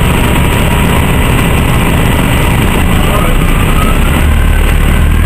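Orion V CNG transit bus heard from inside the cabin, its Detroit Diesel Series 50G natural-gas engine running as the bus rolls along. A faint whine rises in pitch through the second half, and the low engine rumble grows louder near the end as the bus picks up speed.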